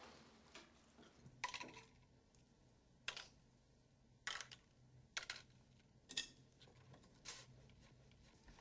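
Glass medicine bottles and small cups clinking and tapping as they are handled and set down on a counter, a sharp clink about every second, over a faint low hum.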